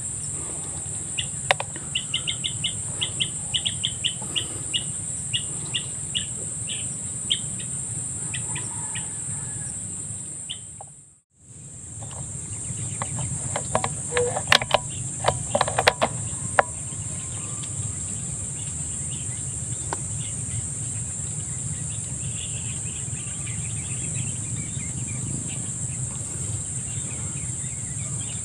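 Steady high-pitched insect drone over a low background hum. In the first quarter a bird gives a run of short, rapid clucking calls, about three a second and slowing down. Just before the middle the sound cuts out for a moment, and soon after a cluster of sharp clicks and knocks is heard.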